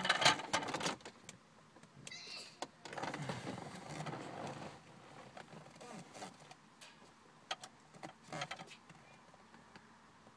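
A car door being opened from inside, with a burst of rustling, a few clicks and knocks, and soft handling noise.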